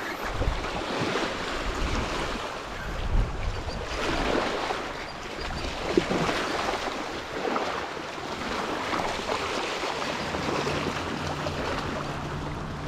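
Small waves lapping on a pebbly shore, wind on the microphone, and a hooked snook splashing and thrashing at the surface in the shallows, in a few sharp splashes.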